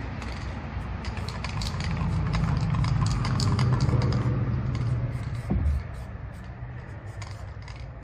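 Spray paint cans being handled: a quick run of sharp clicks and rattles over a low rumble, with one knock about five and a half seconds in.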